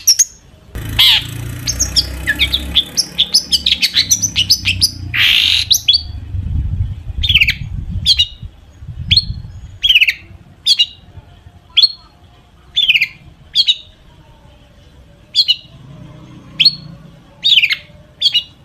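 Long-tailed shrike singing: a fast, harsh chattering medley of mimicked calls for the first six seconds or so, then a single falling call repeated about once a second.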